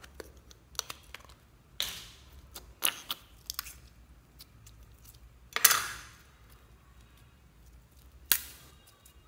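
Clear slime being handled out of its clear plastic container: a run of sharp plastic clicks and sticky crackles as the container is opened and the slime is pulled free. The loudest crackle comes a little past halfway, with one more sharp crack near the end.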